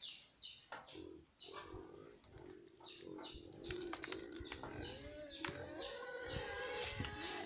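Dried red corn kernels being pried off the cob by hand, a run of sharp little clicks, over a low cooing call in the background, with a wavering higher animal call in the last couple of seconds.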